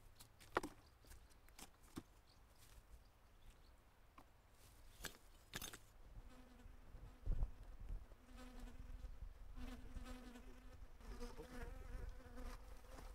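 Bumblebee buzzing as it forages in a poppy flower: a low hum that starts about halfway through and swells and fades as the bee moves. Before it there are a few sharp clicks.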